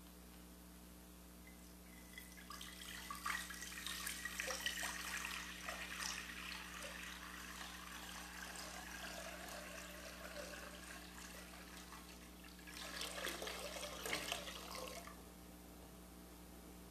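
Water poured from a pitcher into a basin, trickling and splashing for several seconds from about two seconds in. A second, shorter pour follows near the end.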